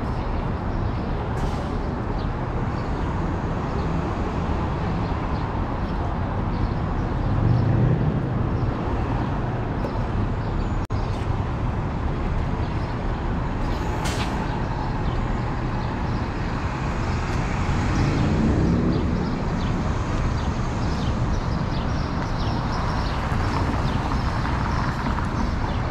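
City street traffic: a steady rumble of motor vehicles, with engines rising in pitch as vehicles pull away twice, about a third of the way in and again past the middle, and a brief hiss about halfway through.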